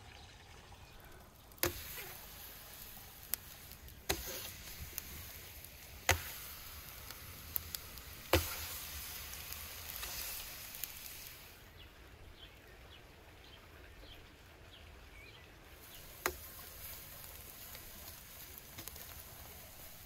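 Pieces of raw lamb slapped by hand onto the hot clay wall of a tandoor: about half a dozen sharp slaps, spaced a second or more apart, over a faint sizzle as the meat sticks to the heated clay.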